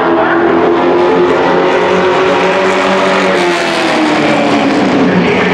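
Dirt-track racing pickup truck's engine running hard at speed. Its pitch dips about three and a half seconds in and then climbs again as it goes around the oval.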